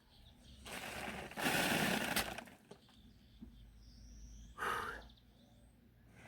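Gritty crunching and scraping of murram soil being dug and moved by hand, in three bursts: a long one about a second in and a short one near the end.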